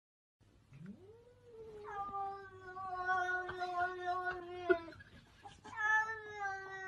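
A cat yowling in long, drawn-out calls: the first rises in about a second in and holds one steady pitch for nearly four seconds, with a few light taps and one sharper tap near its end, and a second long yowl begins near the end.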